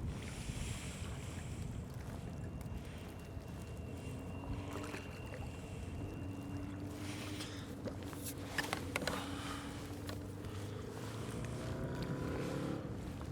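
Wind and water noise around a kayak on open water, with a few sharp clicks and knocks about eight and a half to nine seconds in.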